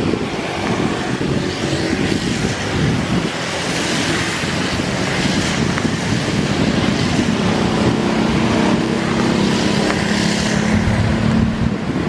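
Boeing 737 airliner's jet engines in reverse thrust during the landing roll on a wet runway: a steady rushing roar that grows louder a few seconds in. Wind buffets the microphone.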